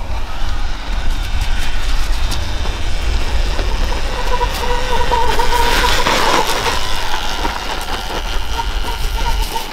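Sur-Ron electric dirt bike riding up a trail and passing close by, its motor whine loudest about midway through, over a steady low rumble.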